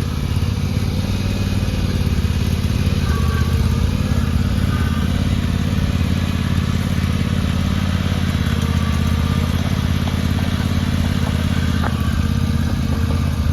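Gas engine of an AGT MY50R mini excavator running steadily at an even speed.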